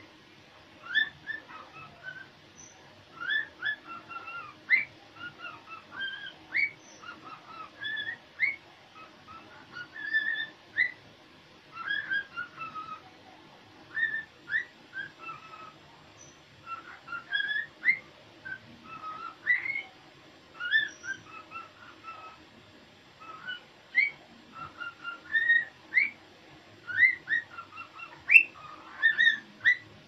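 Cockatiel singing: a long string of short whistled notes, many sliding sharply upward in pitch, delivered in phrases with brief pauses between them.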